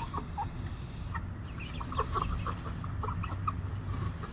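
A flock of young chickens clucking and peeping in many short, scattered notes.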